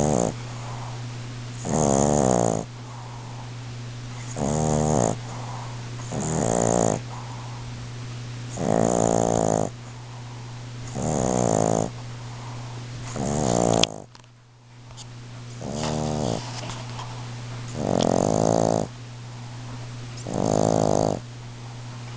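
Boston Terrier snoring loudly in its sleep: about ten buzzy snores, one every two seconds or so, each under a second long, with a short break after a click about fourteen seconds in. The rattling snore is typical of the breed's short, flat muzzle.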